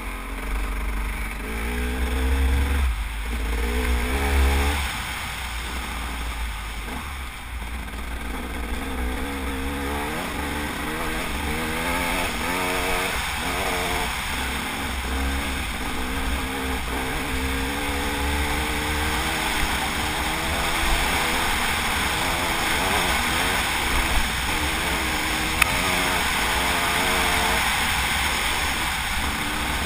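Enduro dirt bike engine revving up and down as the bike is ridden over rough ground, its pitch rising and falling with the throttle. Wind buffets the microphone, most heavily in the first few seconds, and a few sharp knocks come in the second half.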